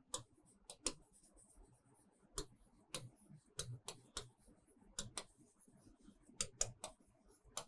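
Faint, irregular sharp clicks of a stylus tapping on an interactive writing screen as words are handwritten, coming in small clusters of several a second with short gaps between.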